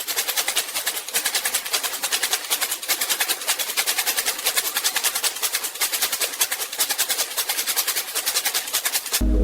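Optical raisin sorter's air-ejector jets firing in a rapid, even train of sharp hissing puffs, about nine a second, each puff blowing a rejected raisin off the line. The puffing cuts off suddenly near the end.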